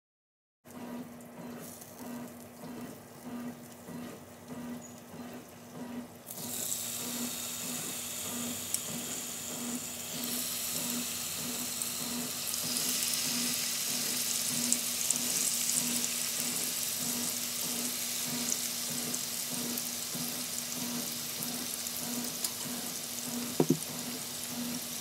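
Marinated boti tikka skewers sizzling in hot oil in a non-stick frying pan. The sizzle starts suddenly about six seconds in and grows louder as more pieces go into the pan. It is steady from there, with two sharp knocks near the end.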